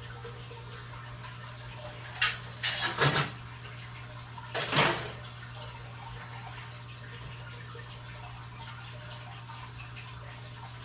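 Aquarium water running through the filter, with a steady low hum throughout. A few short, sharp noises come about two to five seconds in.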